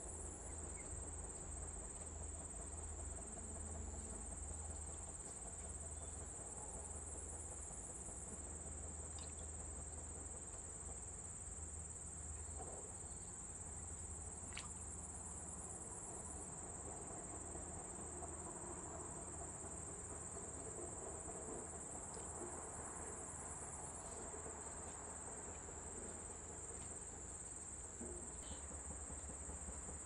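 A steady, high-pitched insect chorus, an unbroken shrill drone that holds at one pitch.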